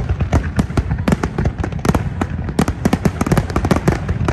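Large aerial fireworks display: a dense barrage of shells bursting together, many sharp overlapping bangs a second.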